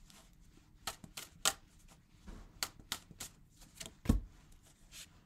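A deck of tarot cards being shuffled by hand: irregular sharp snaps and taps of the cards, with a louder low thump about four seconds in.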